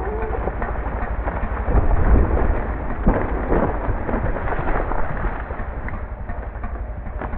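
A dead ash tree falling and crashing to the ground over a running chainsaw, with a deep heavy crash about two seconds in and sharp impacts of limbs coming down about a second later.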